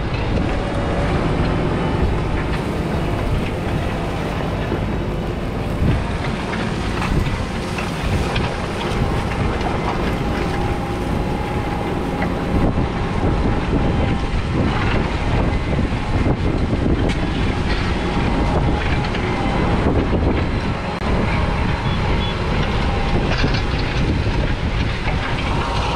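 McCormick X7.624's 6.7-litre six-cylinder diesel tractor engine running steadily.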